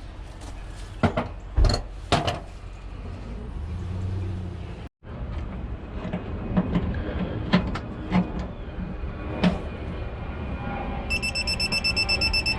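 Clicks and knocks of tools and fittings being handled, then near the end an electronic beeper sounds rapid high beeps that run into a steady tone.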